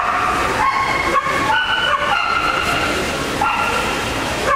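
A dog whining in a string of drawn-out cries that jump up and down in pitch, over the steady background noise of a busy hall.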